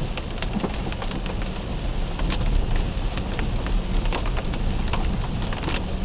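Raindrops pattering on a vehicle's windshield and roof, heard from inside the cabin as many small separate ticks, over a steady low rumble of the vehicle driving on a dirt road.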